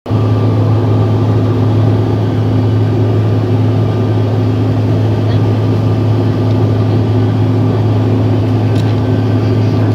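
Steady drone of an airplane cabin: engine and air noise heard from inside, a constant low hum with a few fainter steady tones above it.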